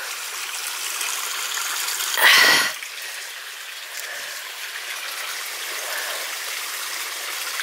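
Small stream running over stones, a steady rushing hiss. About two seconds in, a brief louder burst of noise cuts across it for half a second.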